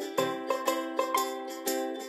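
Background music: a light plucked-string tune with notes at a steady pace of about four a second.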